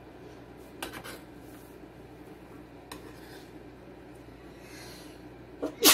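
Small kitchen knife chopping and scraping cucumber on a plastic cutting board: a few light knocks and quiet scraping. A louder sudden sound comes near the end.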